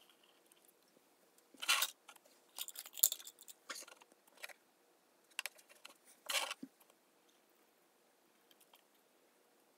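Short, faint, scratchy rustles and scrapes from a hand working over watercolour paper on a taped drawing board while inking with a fine-liner pen, about six of them between one and a half and seven seconds in.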